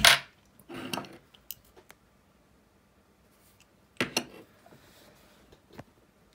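A few sharp clinks and knocks from the metal housing of a Mercedes W140 ignition lock assembly as it is picked up, handled and set down on a wooden table. The loudest knock comes at the very start, with more about a second in and about four seconds in.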